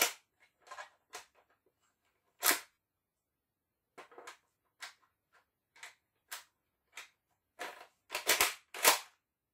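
A series of sharp plastic clicks and clacks from a Zuru X-Shot Regenerator toy foam-dart blaster being handled and worked, about a dozen in all, with a loud clack a couple of seconds in and the loudest cluster near the end.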